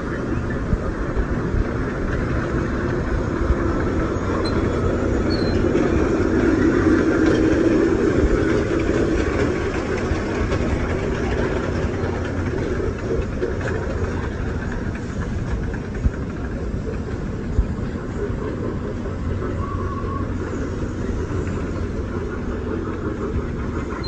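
Children's carnival train ride running around its track, a steady rumble that swells as the train comes close about a quarter of the way in, with a few sharp clicks.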